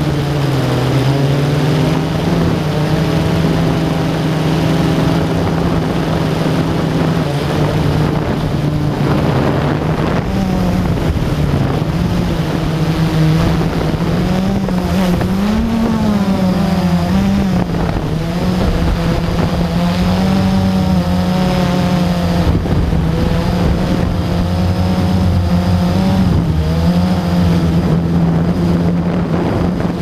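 Blade 350 QX3 quadcopter's electric motors and propellers whining steadily, heard from the GoPro carried on the drone itself, the pitch wavering up and down as the throttle changes, most of all in the second half. Some wind noise on the microphone underneath.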